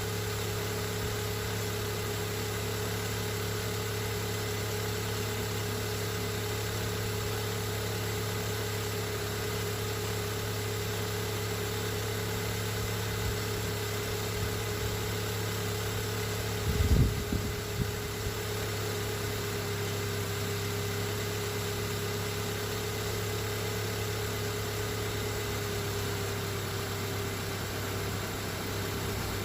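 Car engine idling steadily, with a brief low thump about two-thirds of the way through.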